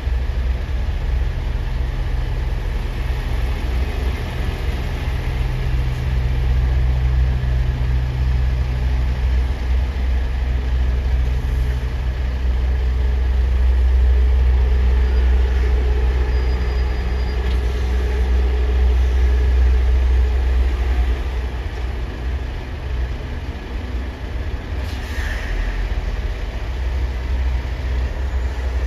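Low, steady rumble of heavy diesel engines, swelling louder around the middle and easing off again.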